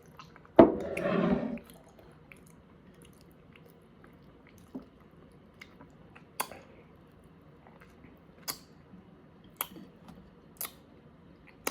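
Close-up chewing while eating salmon, with a louder, noisy sound lasting about a second just after the start, then scattered sharp mouth clicks every second or two.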